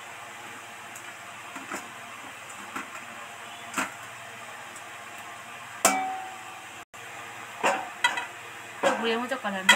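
Jaggery syrup with whole tamarind pods simmering in a metal kadai: a steady low hiss with scattered single pops and clicks. Near the end the pods are stirred, with clattering and scraping against the pan.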